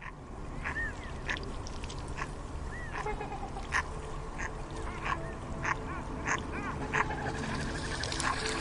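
Ducks quacking in short, separate calls every half second or so, mixed with a few high, arching peeps.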